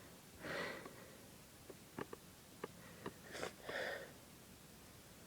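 Nasal sniffing from a nose tickled by inhaled pepper, building toward a sneeze: two breathy sniffs, one just after the start and one about four seconds in, with a few small clicks between them.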